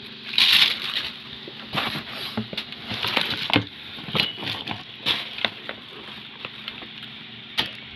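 Plastic packaging rustling and crinkling as parts are handled in a cardboard box, with irregular small clicks and knocks; the loudest crinkle comes about half a second in.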